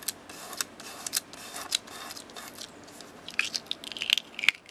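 Fingertips rubbing and rolling dried liquid masking fluid off a sheet of card: a run of short, scratchy rubbing sounds, busier in the second half.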